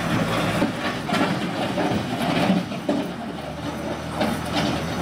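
A motor vehicle's engine running steadily, with a few scattered short knocks and rustles over it.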